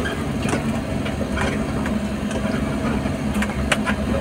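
Vehicle engine running steadily, heard from inside the cab as it climbs a steep dirt track, with irregular sharp clicks and knocks every so often.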